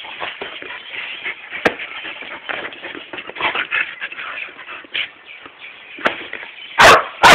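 Dogs scuffling and playing, with shuffling paws and rustling and a few small knocks, then two loud, sharp barks close together near the end.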